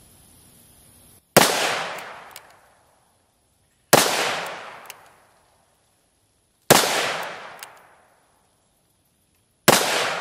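Smith & Wesson .500 Magnum revolver fired four times, about two and a half to three seconds apart. Each shot is a sharp blast with a ringing echo that dies away over about a second and a half.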